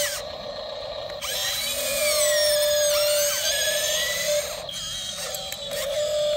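Whine of a radio-controlled model excavator's small electric motor and gears, running in spurts of a second or so, its pitch gliding up and down as it works.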